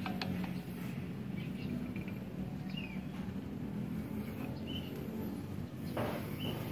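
Steady low background hum with a few short, high chirps scattered through, two light clicks about half a second in, and a brief rustle about six seconds in.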